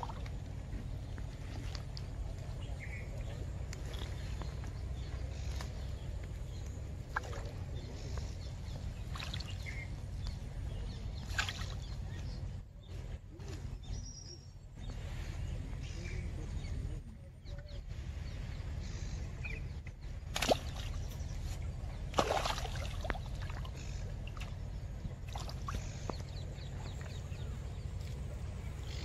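Outdoor riverbank sound: a steady low rumble, a few short high chirps, and scattered splashes and rustling clicks as a small caught fish is handled and unhooked at the water's edge.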